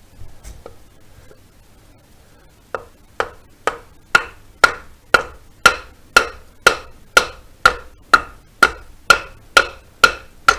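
Wooden mallet knocking on a wooden block, steady sharp strikes about two a second that start a few seconds in and grow louder, tapping a finned cylinder barrel onto its piston in a VW air-cooled engine rebuild.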